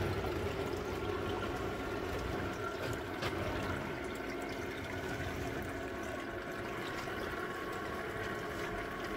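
Water pumped across a homemade Miller table and spilling off its end into the reservoir crate in a steady trickling rush, over a faint steady hum from the submersible pump. The pump is stuck at one low flow because its new speed controller gives no regulation. A small click sounds about three seconds in.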